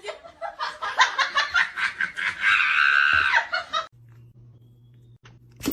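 A person laughing in quick, repeated bursts that rise into a high-pitched squeal, then stopping suddenly, leaving a faint low hum.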